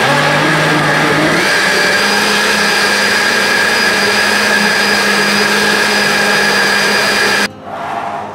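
Electric blender running, blending watermelon chunks with sparkling lemon soda. Its steady motor hum steps up in pitch about a second and a half in, then cuts off suddenly near the end.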